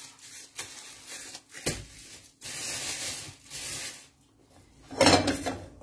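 Large plastic bag rustling and crinkling as the freshly cooked, still-hot cold porcelain paste is handled into it, with a sharp click a little over a second in and a louder burst of handling noise near the end.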